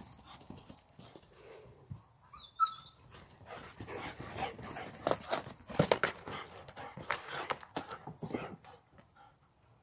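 Kyrgyz taigan sighthounds moving about on grass and paving slabs, with irregular footfalls and scuffs. A brief high-pitched call comes about two and a half seconds in.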